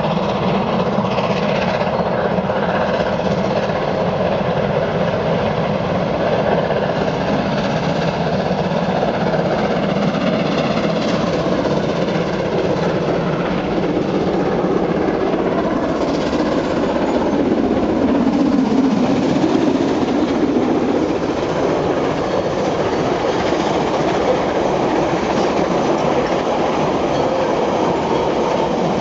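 New Zealand Railways Ja class steam locomotive 1271 hauling its passenger carriages past. Near the end the carriage wheels run over a timber trestle bridge.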